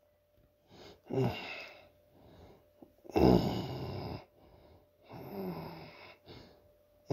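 A voice making several wordless, growl-like sounds. The loudest and longest comes about three seconds in and lasts just over a second.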